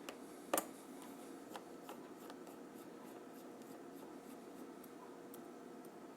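Tiny screws being undone from a Samsung Galaxy S4's housing: one sharp click about half a second in, then faint scattered ticks and scraping of a small tool against the phone, over a steady low hum.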